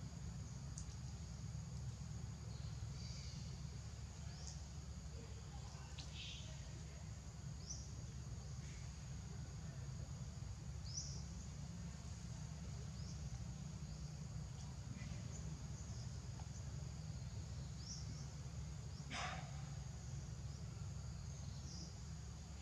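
Outdoor forest ambience: a steady high insect drone over a low steady rumble. Short high chirps come every couple of seconds, and there is one louder rising call about 19 seconds in.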